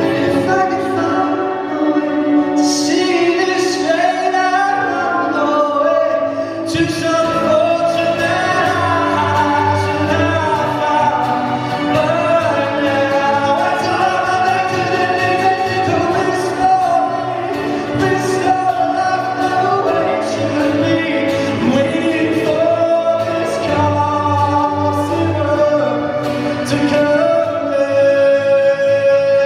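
Live concert performance: a male singer with instrumental accompaniment, singing continuously at a steady, loud level.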